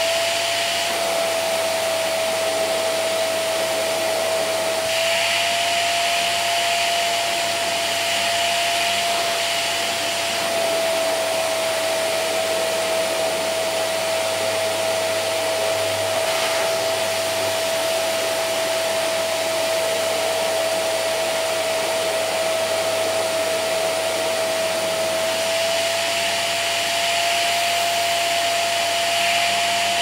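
Vacuum cleaner running steadily over carpet: a constant motor whine over rushing air. The hiss turns brighter for a few seconds about five seconds in and again near the end.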